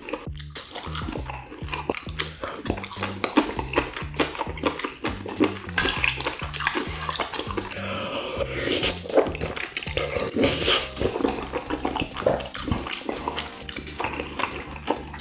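Close-miked eating: wet chewing, smacking and slurping of noodles and stir-fried octopus and beef intestine, with quick clicks of chopsticks, the loudest slurp about nine seconds in. Background music with a steady bass line runs underneath.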